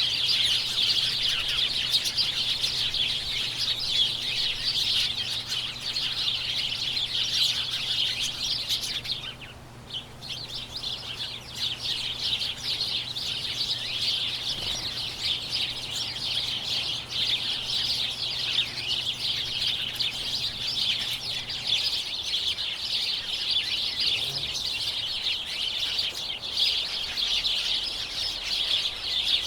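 A large flock of small birds chirping together in a dense, continuous chatter of overlapping high chirps and tweets. The chorus drops away briefly about nine seconds in, then resumes.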